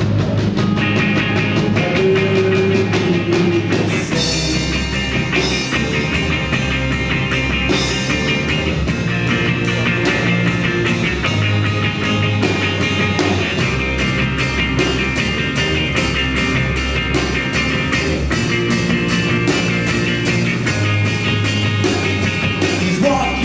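Live rock band playing an instrumental passage with a steady beat, no singing.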